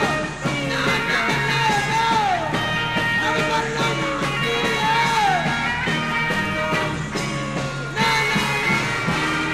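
Closing bars of a 1960s rock band recording played from vinyl: band instruments with a falling, sliding line that repeats every second or two.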